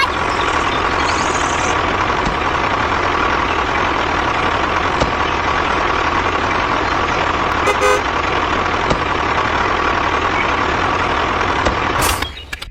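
A small motor running steadily, then cutting off shortly before the end.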